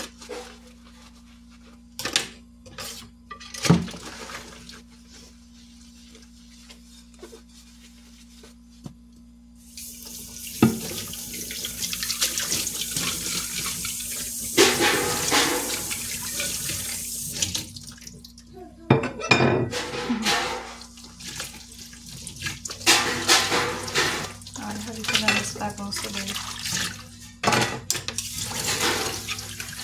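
Washing dishes at a stainless steel sink: dishes and cutlery clink and knock as they are scrubbed. About ten seconds in the tap runs steadily over a plate being rinsed for several seconds, and more clatter, scrubbing and running water follow near the end.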